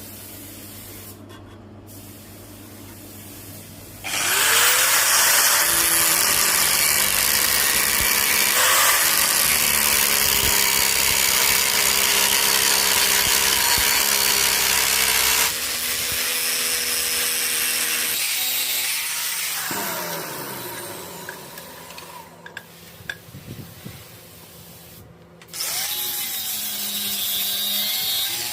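Electric power tool working metal: its motor spins up about four seconds in and runs loud for about eleven seconds, eases off, then winds down with a falling whine and is started again near the end.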